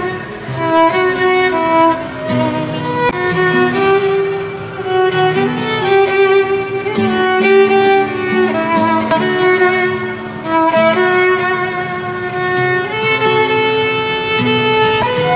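Solo violin playing a melody of held notes, a sad Indonesian pop love song.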